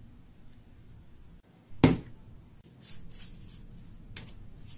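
Hands handling plastic bottles and bags of a slime kit: one sharp knock about two seconds in, then a few short rustles and taps.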